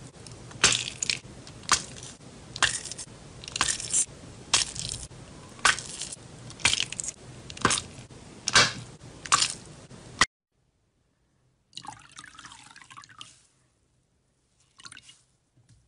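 Small sealed plastic zip bags of orange gel squeezed by hand, the plastic giving a sharp crackle about once a second over a steady hiss. After a sudden cut, a wet sponge squeezed over a bowl of water gives two short wet squishes.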